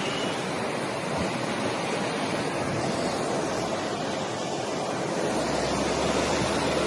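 Floodwater of an overflowing river rushing past, a steady noise of fast-moving water that grows a little louder near the end.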